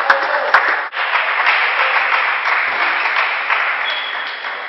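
A table tennis ball clicks twice, then spectators applaud from about a second in, the clapping slowly fading.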